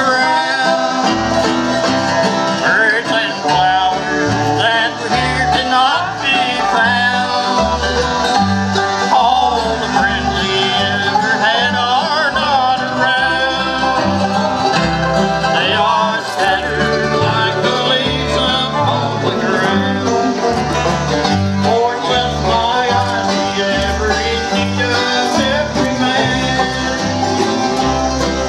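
Bluegrass band playing live: strummed acoustic guitars and banjo over an upright bass's steady stepping bass line.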